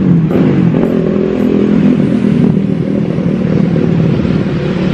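Motor vehicle engine, likely a motorcycle, running close by in a steady low drone, part of the busy road traffic beside the stall.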